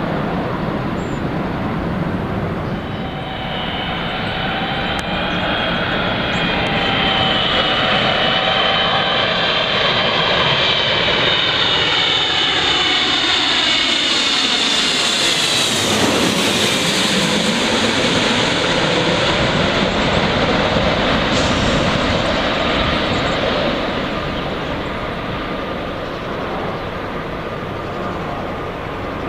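Jet airliner passing low on its landing approach, engines running with a high whine that slides down in pitch as it goes by about halfway through, then a steady jet rumble that slowly fades.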